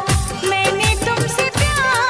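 Background music: a song with a steady beat of deep kick drums about twice a second under a wavering melody.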